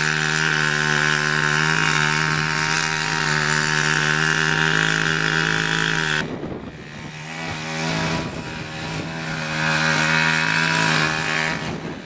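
Chainsaw running at full throttle as it cuts into a tree trunk. It drops back about six seconds in, then revs up again for a few seconds before easing off near the end.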